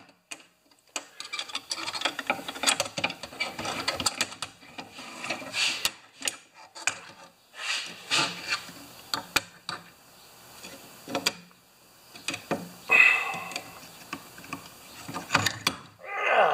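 A steel thatcher spring being worked onto a lawn thatcher blade with pliers: irregular metal scraping, rubbing and clicks as the spring and pliers move against the blade. A brief higher-pitched sound comes about three-quarters of the way through.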